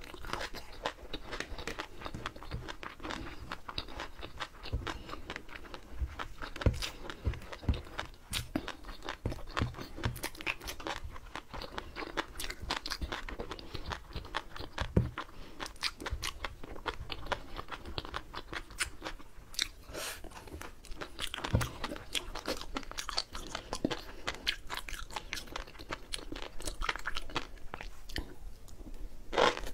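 Chewing mouthfuls of flying fish roe (tobiko), a dense run of small crunchy pops and clicks as the eggs burst between the teeth.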